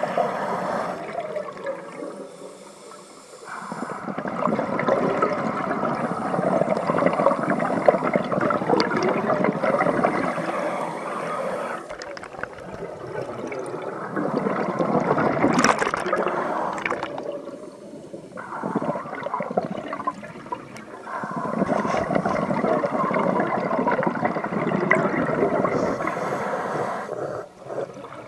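Scuba diver's exhaled bubbles rushing from the regulator underwater, in long surges broken by several short quieter gaps between breaths.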